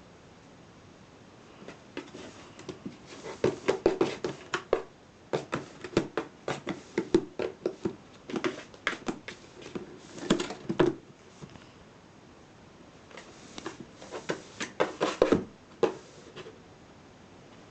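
A cat biting and chewing on a cardboard box: quick runs of crunching and crackling cardboard, in two spells with a pause of about two seconds between them, the second shorter.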